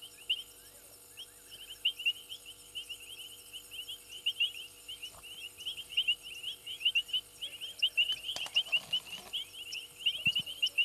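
Night chorus of rapid, high-pitched chirping that repeats several times a second, over a steady low hum. About eight seconds in comes a brief rustling noise.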